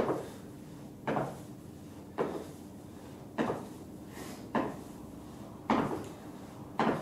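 Repeated squat-jump landings: trainers thudding onto rubber gym flooring, one thud about every second, seven in all.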